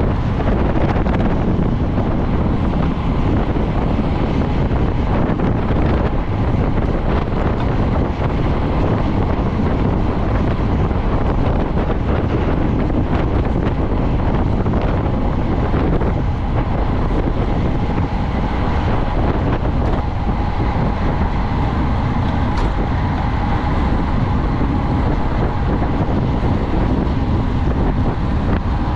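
Wind rushing over the microphone of a camera riding along in a bicycle race at speed: a loud, steady rush, heaviest in the low end.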